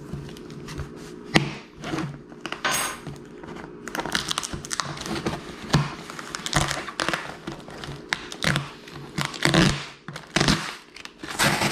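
Cardboard box and packing material being handled and opened: irregular rustling and crinkling with scattered knocks.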